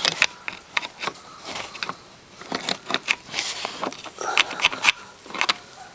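Scattered clicks and taps with crinkling of plastic sheeting: handling noise right at the microphone.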